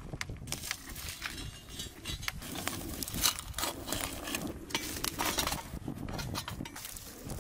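Wood fire crackling, with irregular sharp snaps and pops from burning sticks and twigs; one louder snap about three seconds in.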